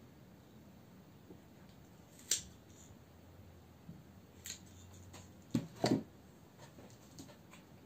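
Pruning shears cutting into the base of a rose cutting's stem to split it: a sharp snip about two seconds in and a lighter one a couple of seconds later. Near the six-second mark come two dull knocks as the shears are set down on the table.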